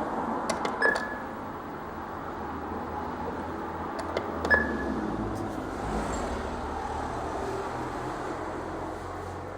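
Two short clusters of sharp clicks, about a second in and again about four and a half seconds in, each ending in a brief ringing tone, over a steady hiss.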